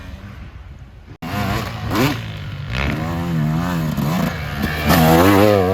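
Dirt bike engine revving up and down on a motocross track. It comes in loud after a sudden cut about a second in, with the pitch repeatedly rising and falling as the throttle is worked.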